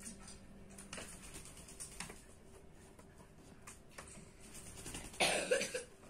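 Common myna bathing in a steel water bowl: scattered light taps and small splashes, then a short, loud, harsh cough-like burst about five seconds in as it leaves the bowl.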